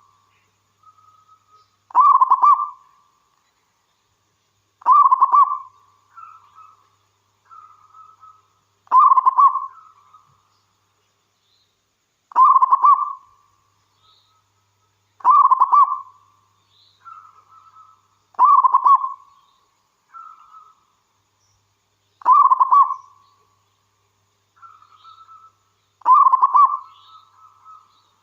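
Zebra dove (perkutut) cooing its song, a loud phrase about every three to four seconds, with softer notes in between.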